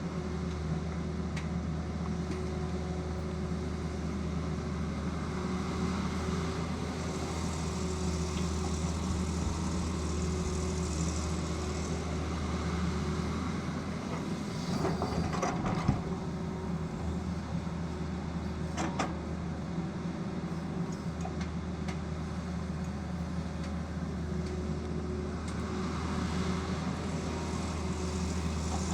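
Tata Hitachi excavator's engine running steadily, with a cluster of sharp knocks about halfway through and another a few seconds later.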